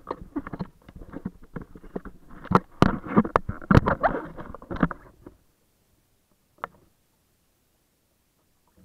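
Water splashing and slapping against a handheld camera held at the sea surface, mixed with knocks and rubbing from handling. The noise is irregular and goes on for about five seconds, then stops suddenly, leaving one more knock.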